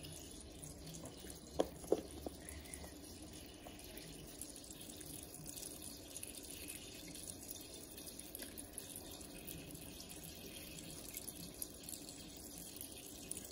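Hang-on-back aquarium filter's outflow trickling steadily into the tank water, with two brief clicks about a second and a half in.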